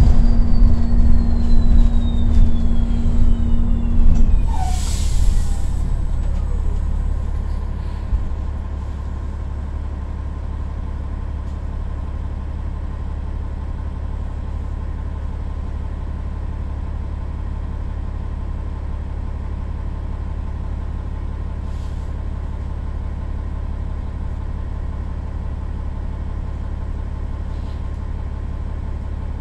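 Inside a 2018 New Flyer XDE40 hybrid bus (Cummins L9 diesel with BAE HybriDrive electric drive) slowing to a stop: the electric drive's whine falls in pitch over the first several seconds, with a short hiss of air about five seconds in. The bus then stands with a steady low rumble and faint hum.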